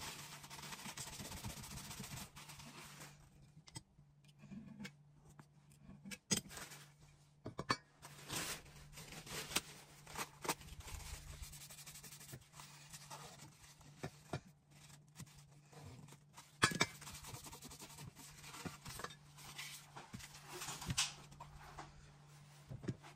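Paper towel rustling as parts are wiped, then scattered light clicks and scrapes of metal being handled: a Beretta shotgun barrel and a choke tube worked with a choke key.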